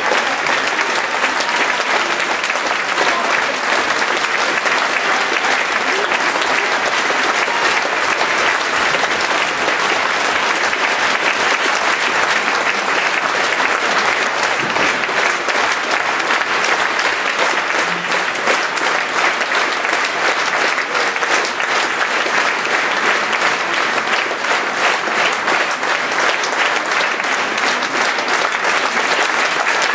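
Theatre audience applauding steadily, a dense, even clapping that keeps up without a break.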